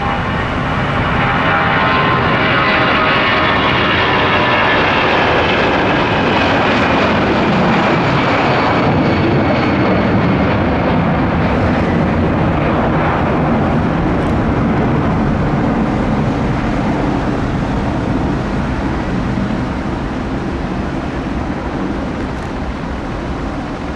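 An Airbus A340-300's four CFM56 turbofans at takeoff power as it accelerates, lifts off and climbs away. The loud engine noise carries a whine that falls steadily in pitch as the jet passes, then gives way to a lower rumble that slowly fades.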